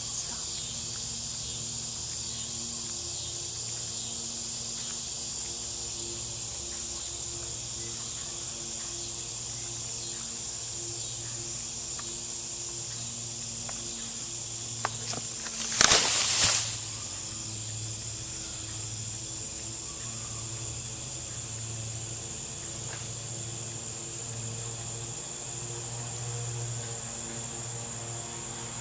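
Steady high-pitched insect trilling, typical of crickets, runs throughout. About halfway through comes a sudden loud hiss-like burst lasting about a second.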